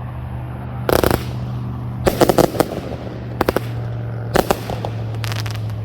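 Agent of Boom 500g consumer firework cake firing its salute-like reports: clusters of sharp, loud bangs about once a second, some in quick rattling strings of several cracks.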